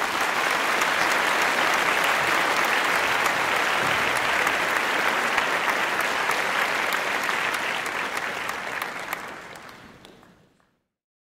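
Audience applause: dense, steady clapping that fades out near the end.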